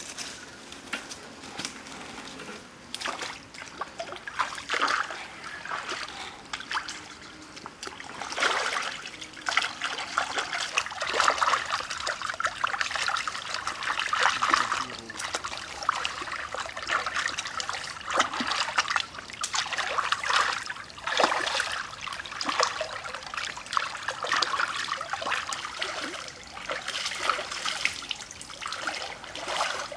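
Shallow stream water splashing and trickling in irregular surges as a rack of raw pork ribs is swished and rinsed by hand in it.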